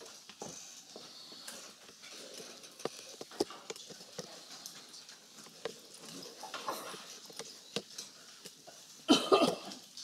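Scattered footsteps, clicks and shuffling as a presenter walks up to the front of a lecture hall, with a louder burst of rustling and knocks about nine seconds in.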